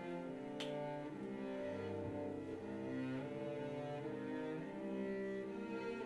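Slow music of layered bowed-string drones: low held notes overlapping and shifting gradually, with a faint click about half a second in.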